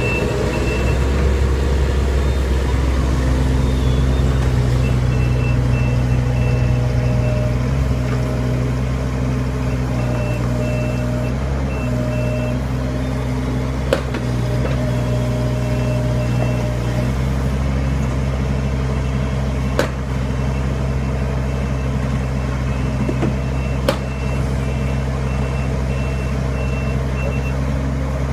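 Kubota KX41-3V mini excavator's diesel engine running steadily while the machine works, with a travel warning alarm beeping in a regular series for most of the time. Three sharp knocks sound along the way.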